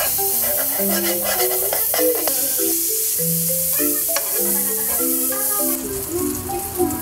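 Margarine melting and sizzling in a hot stone-coated wok while a metal spoon stirs and scrapes it around the pan, with a few clicks of the spoon on the pan. The sizzle eases about six seconds in. A light marimba-like background melody plays throughout.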